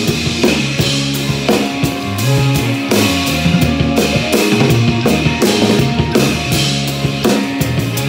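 Live drum kit and electric guitar playing a song together, with cymbals, snare and bass drum up close and sustained low guitar notes underneath.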